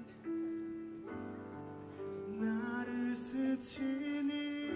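Live band ballad: held keyboard chords, with a man's voice coming in about halfway and singing a line with vibrato.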